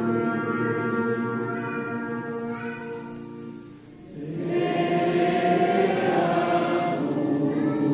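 Congregation singing a hymn together from song sheets, long held notes. The singing fades briefly a little before halfway, then comes back louder on the next phrase.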